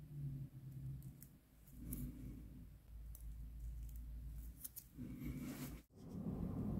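Metal tweezers picking loose shed skin off a bearded dragon's belly scales: faint, scattered sharp ticks and clicks as the dry skin is lifted, over a low steady hum.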